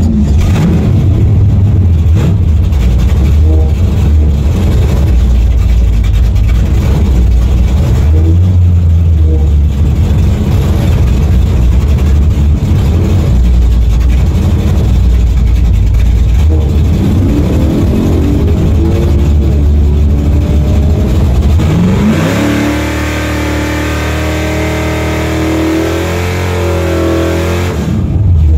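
Car engine running with a deep low rumble, then revving up with a rising pitch about two-thirds through. A higher, harsher, hissier engine sound follows for several seconds near the end, then the low rumble comes back.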